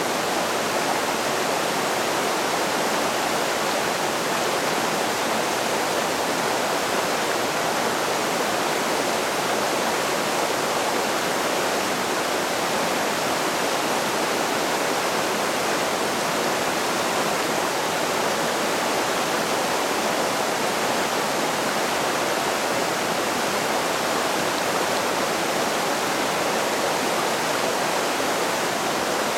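Fast creek rushing over boulders and small rapids: a loud, steady, even rush of white water.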